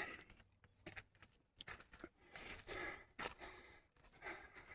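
A man breathing hard in short breathy puffs, with faint scattered clicks and scrapes between them.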